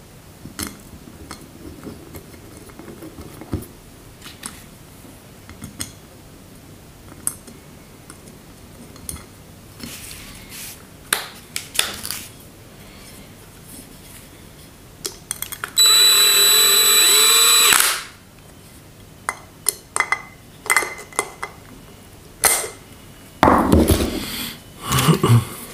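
A cordless drill-driver runs for about two seconds, with a steady whine, driving a screw into the LPG reducer body. It is set to a low torque setting so as not to strip the thread. Small clicks and knocks of metal parts being handled come before and after it.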